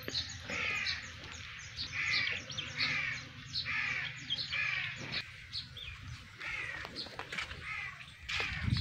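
Crows cawing over and over, one call about every second, thinning out in the second half, over a low steady rumble, with a low thump near the end.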